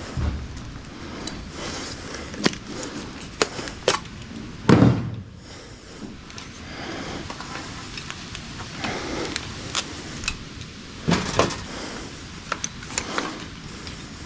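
Metal caulking gun being handled and reloaded: scattered clicks and clanks of its trigger, release and plunger rod, with a heavier knock about five seconds in and another cluster of knocks near eleven seconds.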